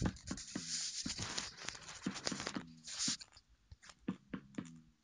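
Irregular light clicks and knocks, with a rustling hiss over the first three seconds or so.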